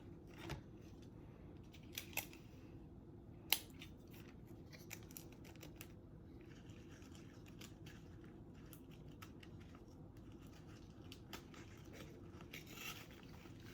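Faint scratching and rustling from crafting at a table, with a few sharp clicks and taps, the loudest about three and a half seconds in.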